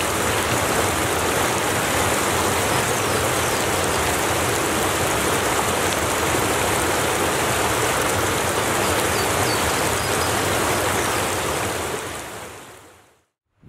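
Woodland brook rushing and splashing over rocks in a steady, even flow, fading out about twelve seconds in.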